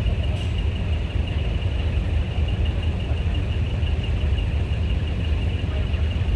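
A truck engine idling, giving a steady low rumble with a faint steady high whine over it.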